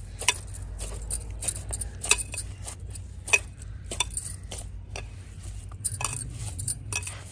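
Glass bangles clinking on the wrists as fists knead and punch a stiff dal-and-flour dough in a clay bowl. The clinks are sharp and come at an irregular pace, about one or two a second.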